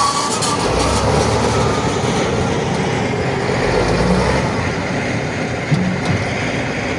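Primary jaw crusher crushing rock: a steady heavy rumble and clatter of stone, with one sharper knock late on.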